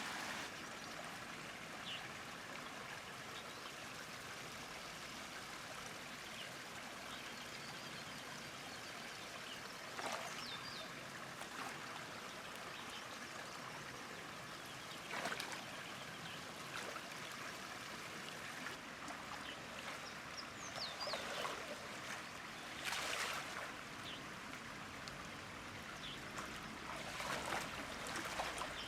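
Steady rush of flowing river water, broken now and then by several brief, sharper splashes or knocks.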